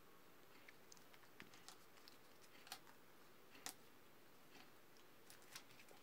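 Near silence with a few faint, scattered clicks and taps from paper pages and small metal binder clips being handled, the two clearest about a second apart near the middle.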